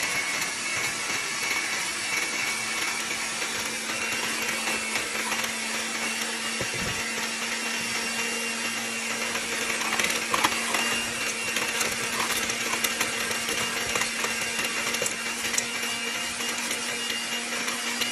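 Electric mixer running steadily, its beaters churning cream cheese and butter in a stainless steel bowl while making icing, with a steady motor hum.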